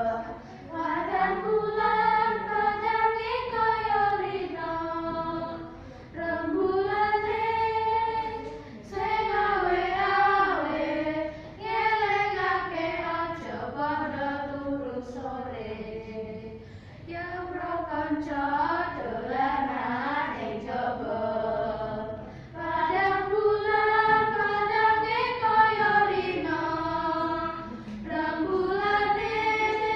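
A small group of schoolchildren, boys and girls, singing a song together in unison, unaccompanied. It goes in sung phrases of a few seconds each, with short breaks for breath between them.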